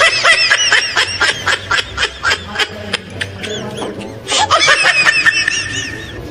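A high-pitched, sped-up laughing sound effect made of quick rising-and-falling squeals, about five a second, laid over background music. It thins out for about a second just after the middle and then picks up again.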